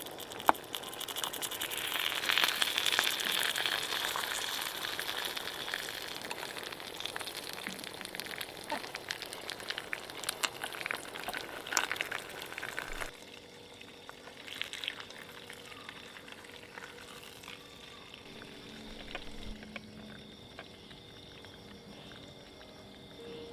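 Food sizzling and spitting in a pan over a campfire: a dense crackling hiss with many small pops, loudest a few seconds in. About halfway through it cuts off abruptly, leaving a quieter background with faint steady tones.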